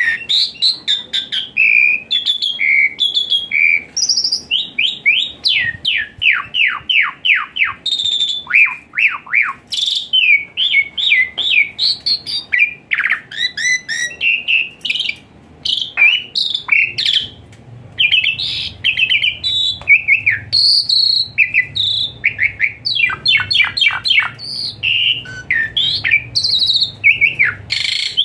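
Asian pied starling (jalak suren) singing a long, rapid, varied song of chattering and whistled notes, with runs of quick falling whistles. Its 'hot shot' phrases are the ones used to stir other captive jalak surens into singing.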